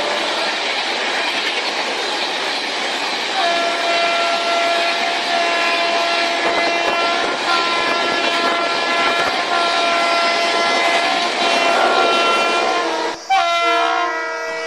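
Battery-operated toy train running on its track, with a steady rattling run and electronic train-horn sound effects from its built-in speaker that come and go. About 13 seconds in the sound cuts abruptly to a different set of electronic tones.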